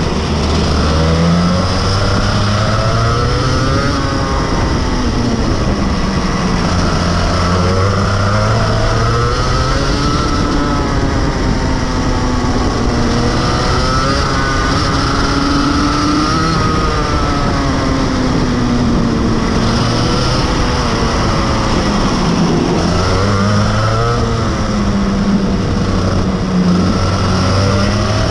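Rotax Max Evo 125 cc single-cylinder two-stroke kart engine heard onboard at racing speed, its pitch climbing as it accelerates out of corners and falling as it slows into the next, again and again.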